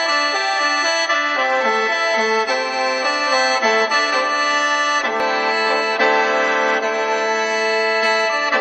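Khaen, the Isan/Lao bamboo free-reed mouth organ, playing a stepping melody over sustained drone notes.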